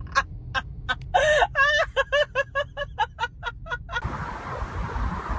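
A rapid run of short, pitched clucking calls, about five a second, over a low rumble; they stop suddenly about four seconds in. Wind noise on the microphone follows.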